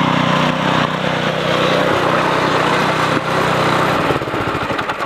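Lawn mower engine running steadily, then slowing into separate beats and fading away near the end.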